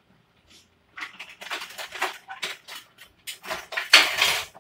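Kitchen utensils and dishes being handled: a quick run of clatters starting about a second in, loudest near the end.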